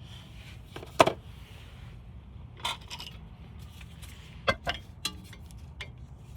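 Metal brake parts clinking and scraping as they are handled: one sharp clink about a second in, then several lighter clicks and knocks.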